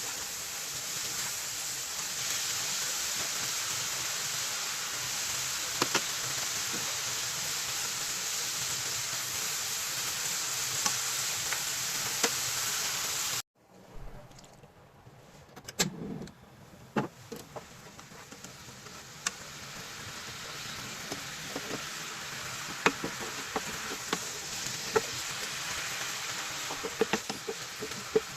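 Food sizzling steadily in a hot pan, with occasional sharp clicks and knocks from a utensil. The sizzle cuts off abruptly about halfway through, then builds up again, with more frequent clicks near the end.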